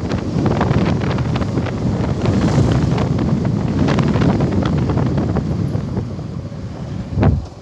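Heavy wind buffeting the microphone with low rumble and frequent knocks, as when riding on a moving motorcycle taxi. There is a stronger gust about seven seconds in, after which it quietens.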